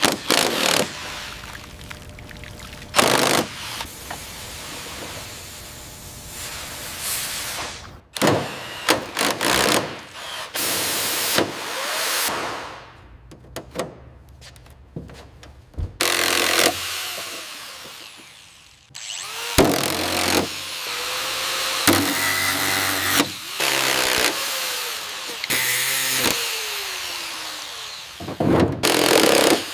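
Workshop tool noise: a string of power-tool runs and sharp knocks that start and stop abruptly.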